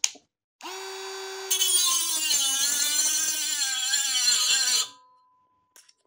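Parkside PMBSA 20-Li A1 cordless rotary multi-tool starts up about half a second in, and about a second later its small cutting disc bites into a metal tube with a loud, high grinding whine whose pitch wavers under load. Near five seconds in it winds down and stops, consistent with the tool's intermittent shutting off on its own.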